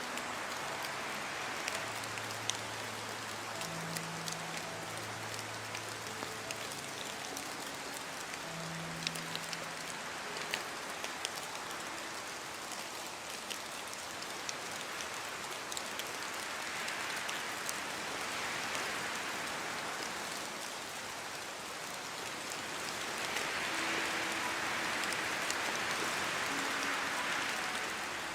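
Steady rain with scattered sharp drop ticks, swelling louder twice, more strongly near the end. Faint low held tones sound under it in the first part.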